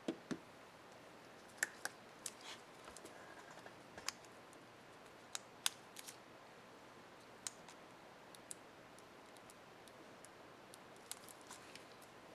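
Small, sharp plastic clicks and taps, irregularly spaced, from handling a laptop keycap and its retainer clip on an HP Stream 11 keyboard.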